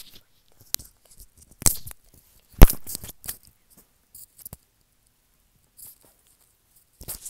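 Handling noise on a wired earbud headset microphone: a few sharp knocks and rustles, the loudest about two and a half seconds in, then scratchy rustling again near the end as the earbud is fitted.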